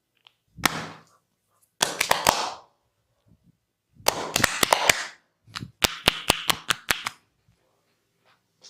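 Hands slapping the body in a vigorous percussive massage: sharp slaps and pops in four quick bursts, the longest a rapid run of strikes about two-thirds of the way in.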